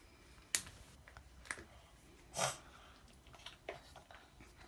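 Light plastic clicks and taps from a two-piece Play-Doh mould being handled and pulled open: a sharp click about half a second in, another about a second later, a short rustle near the middle, then a few faint ticks.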